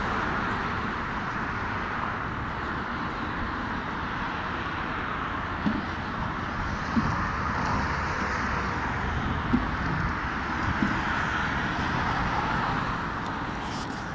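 Steady road traffic noise from cars on a multi-lane road, with a few brief faint knocks in the middle.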